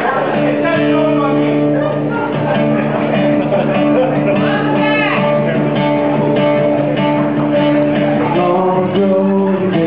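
Live guitar playing a song's instrumental intro, with steady held chords.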